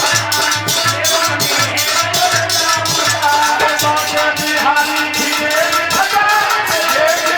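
Devotional bhajan music with a fast, steady beat of drums and a shaker-like rattle, about four strokes a second, under a melody.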